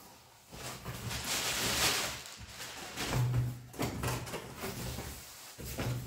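Cardboard packaging of a speaker subwoofer being opened and handled: irregular rustling and scraping of cardboard, with a few knocks and low dragging sounds.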